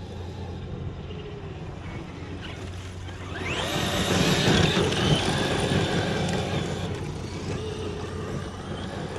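Brushless electric motor of a radio-controlled car whining sharply up in pitch as it accelerates hard about three seconds in, over a steady low rumble, then holding a high whine and easing off.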